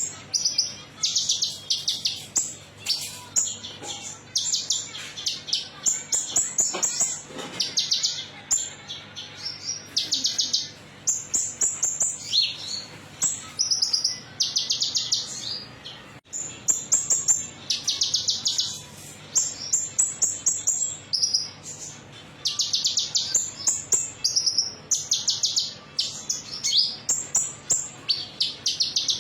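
Kolibri ninja sunbird singing: repeated short phrases of rapid, high-pitched chattering twitters, several every few seconds, with brief pauses between them.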